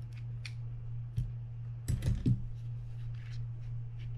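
Small metal clicks and taps as tweezers work a bearing out of a Penn Spinfisher 550SSG spinning reel's body, with a louder cluster of clicks about two seconds in. A steady low hum runs underneath.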